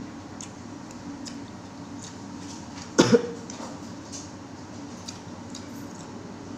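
A person coughs sharply twice in quick succession about three seconds in, choking on very spicy bakso sambal. Faint soft clicks are heard around the cough.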